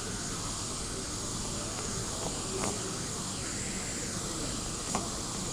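Steady background hiss with two faint clicks, one about two and a half seconds in and one near the end.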